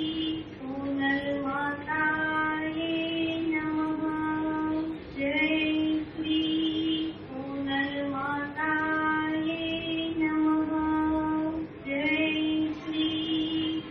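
A high female voice singing an aarti, a Hindu devotional hymn, unaccompanied, in long held notes with a phrase that keeps repeating.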